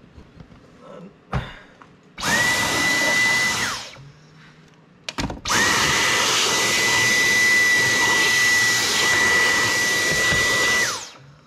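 Cordless stick vacuum switched on twice, first for about a second and a half, then for about five seconds, each time with a steady high whine that spins up at the start and winds down when it is switched off. A couple of short knocks come before each run.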